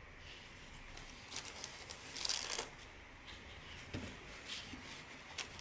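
Stiff printed cross-stitch fabric being unfolded and handled, rustling in a run of short bursts that are loudest about two seconds in, with a few lighter rustles after.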